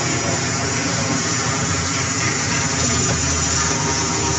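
A vehicle engine idling steadily at an even speed.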